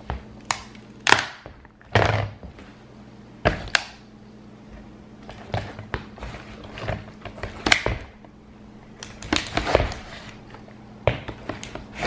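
A plastic toy water pistol being crushed underfoot by a sneaker: about a dozen sharp cracks and snaps of breaking, flexing plastic, irregularly spaced.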